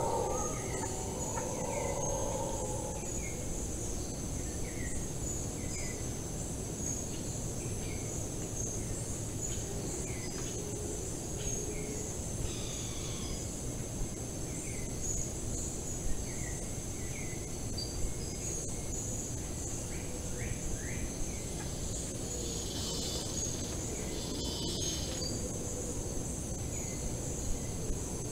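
Tropical forest ambience: a steady, high insect trill, with a bird giving short repeated chirps every second or two, and two buzzy insect bursts a little over 20 seconds in, over a constant low rumble.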